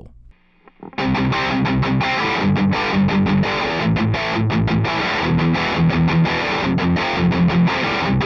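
Electric guitar strummed in a steady rhythm of chords, starting about a second in after a short pause.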